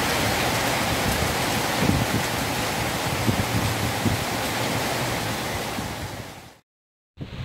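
Strong storm wind rushing steadily, with low rumbling gusts buffeting the microphone. The rush fades about six seconds in and cuts to silence for half a second before a quieter wind noise resumes.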